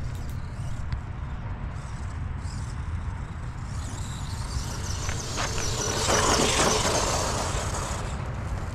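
Arrma Fury 2WD short course RC truck driving over grass and dirt: electric motor whine and tyre noise that grow louder about six seconds in as it runs close, then ease off, over a steady low rumble.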